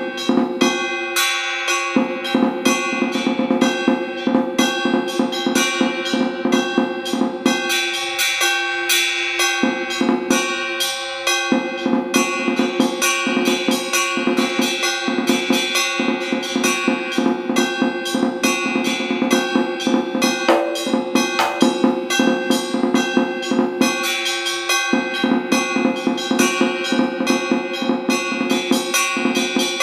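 Large Vietnamese battle drum (trống chiến) struck with two wooden sticks in fast, dense strokes and rolls on the head, pausing briefly about eight seconds in and again near the end, over a steady ringing tone.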